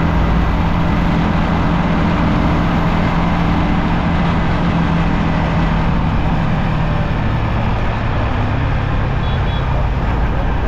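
Yamaha XSR155 single-cylinder motorcycle engine running steadily at cruising speed under a loud, steady rush of wind and road noise on the rider's microphone. The engine note drops lower about seven seconds in.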